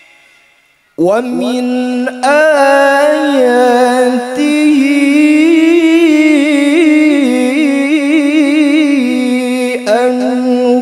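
Qur'an recitation (tilawah) in a long, melodic line by a single voice with heavy echo. The echo of the last phrase dies away during a breath pause. About a second in, a new phrase begins, with notes held and ornamented by a fast wavering, and there is a brief break near the end before the voice goes on.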